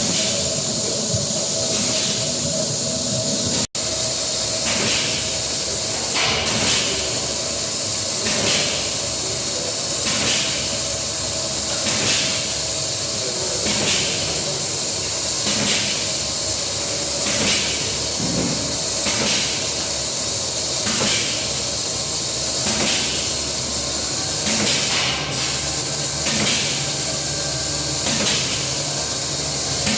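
Çeçil cheese forming machine running: a steady hiss with a regular pulse about every two seconds as it cycles.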